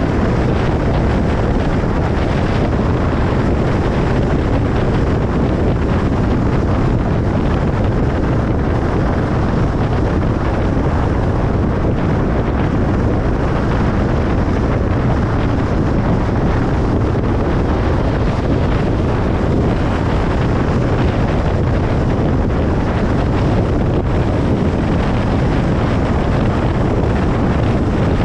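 Steady road and tyre noise of a car driving at speed on a motorway: an even, low-heavy rush with no breaks.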